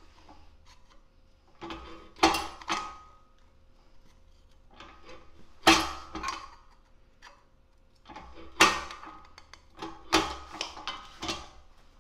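Eastwood lever-action bench shear snipping small pieces off the edge of a steel disc: about five sharp metallic cuts a second or few apart, each with a brief ring of metal.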